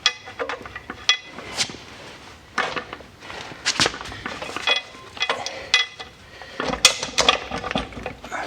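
Irregular metal clinks and knocks, several with a brief ringing tone, from metal parts and tools being handled.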